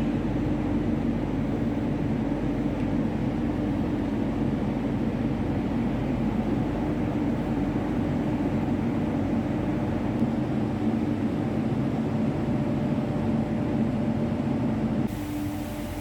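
Roller conveyor shot blasting machine running: a steady industrial hum with a couple of low held tones. Near the end the sound drops and a steady hiss comes in.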